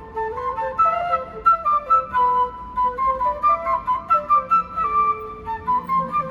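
A flute playing a quick, running melody of short notes.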